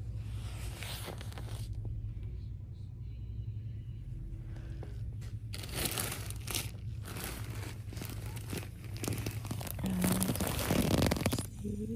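Crinkling and rustling of a stiff plastic package being handled, in irregular bursts that grow dense through the second half, over a steady low hum.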